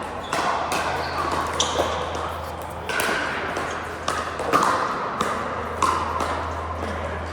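Pickleball paddles hitting a plastic pickleball: repeated sharp pocks at uneven intervals, several of them a fraction of a second apart.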